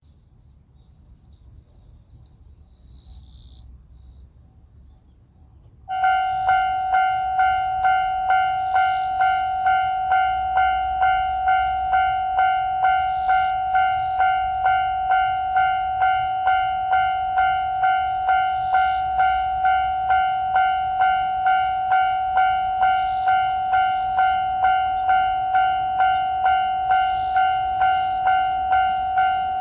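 Japanese railroad crossing warning bell. It starts suddenly about six seconds in, then rings steadily in the familiar 'kan-kan' pattern, about two dings a second, each stroke ringing out: the crossing has been triggered by an approaching train.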